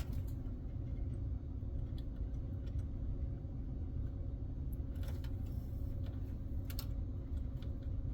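A few light, scattered clicks and taps from handling PC cables and connectors, over a steady low hum.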